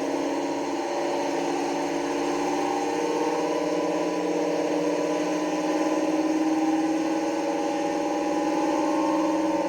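Sound decoder of an Accurascale Deltic model locomotive playing the Napier Deltic engine running, through the model's small speaker. Its pitch edges up slightly in the second half, after a manual notch-up.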